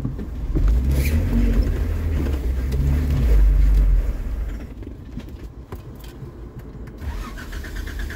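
Jeep Wrangler engine heard from inside the cab, with a knock at the start. It pulls the Jeep along a dirt trail, then drops back to idle about four seconds in.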